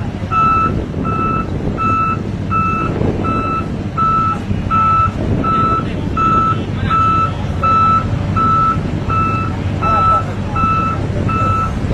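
Sakai vibratory road roller's backup alarm beeping about twice a second, a single steady high tone, over the roller's engine running.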